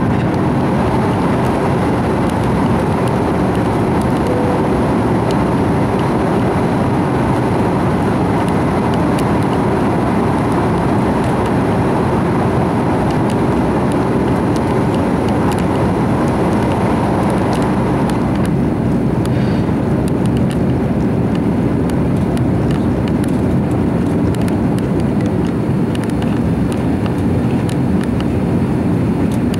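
Cabin noise of an Airbus A330-300 in its initial climb after takeoff, heard inside the cabin. It is a loud, steady rush of its Rolls-Royce Trent 700 engines and of the air streaming past the fuselage. About 18 seconds in the hiss eases a little while the deep rumble carries on.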